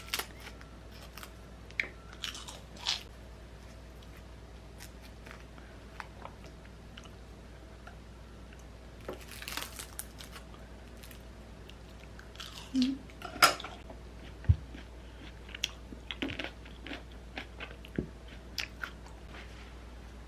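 Scattered light clicks, taps and short rustles of small objects being handled, loudest about two-thirds of the way through, over a faint steady low hum.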